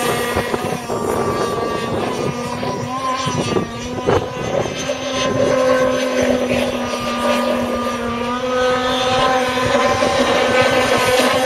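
Engine of an RC speedboat running at speed as it is run in, a steady high buzz that wavers slightly in pitch. A brief sharp knock about four seconds in.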